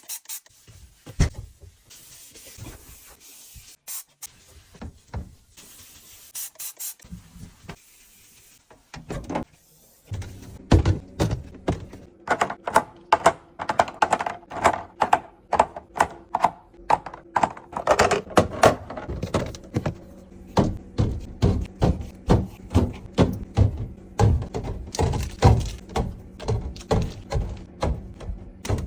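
Restocking a fridge: sharp clicks and knocks of containers and packaged items being handled and set down. Sparse for the first ten seconds or so, then a dense run of quick taps, several a second, over a steady low hum.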